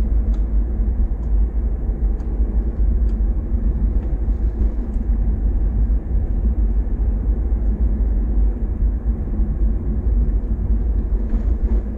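A car driving slowly in city traffic, heard from inside the cabin: a steady low rumble of road and engine. Faint ticks come about once a second from the turn-signal indicator.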